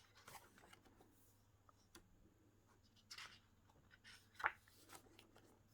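A few short, faint paper rustles and flicks as the pages of an album photo book are turned and handled.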